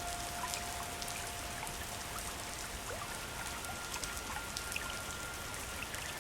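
Water running and splashing, a steady rushing hiss full of small droplet patters that sounds rain-like. A faint held note of soft background music sounds under it.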